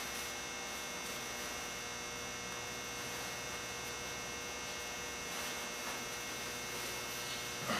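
Steady electrical mains hum: a low drone with faint steady high tones above it.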